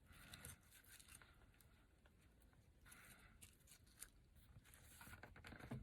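Faint rustling of ribbon being tied into a bow by hand, in a few short bursts with light clicks.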